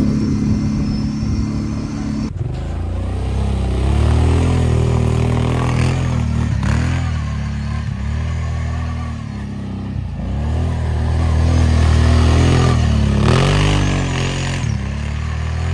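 Kawasaki Brute Force ATV engine, running steadily on board for about two seconds, then, after a cut, revving up and dropping back again and again as the quad spins around in snow.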